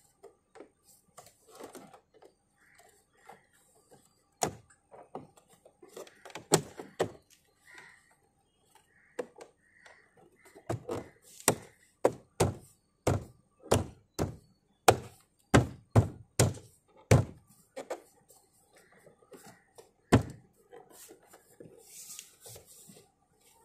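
Hands pressing and striking a plastic armrest trim piece into the rear door panel of an Audi A4 B8, making dull thunks. The thunks come singly at first, then in a run of about a dozen in the middle at roughly two a second, with one more near the end.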